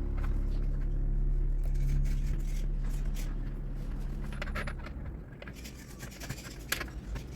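A low held musical tone fades away over about five seconds. Scattered light clicks and scrapes come through, from small tools working on a smartwatch during its repair.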